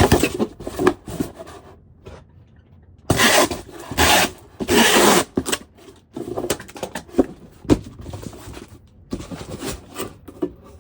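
Cardboard shipping box being handled and assembled: scrapes, knocks and rustling, with three loud rasping strokes in quick succession a few seconds in.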